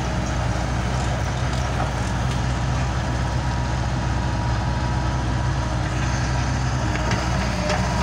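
Bobcat 751 skid-steer loader's diesel engine running steadily while the machine drives and turns and lowers its bucket.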